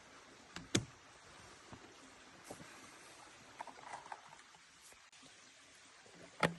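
Two sharp knocks, one about a second in and one near the end, over a faint steady hiss, with a few small clicks in between.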